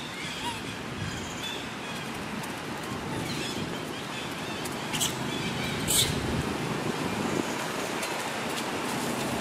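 Steady outdoor noise with wind rumbling on the microphone and a few faint high chirps in the first two seconds. Two sharp crackles come about five and six seconds in, the second the loudest.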